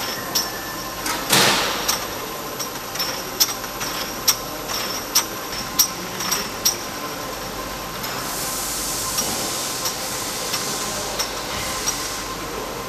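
Aerosol can filling machine running, with sharp clicks and knocks at irregular intervals as cans are indexed around the star wheel. There is a short burst of hiss about a second and a half in, and a longer hiss through the second half.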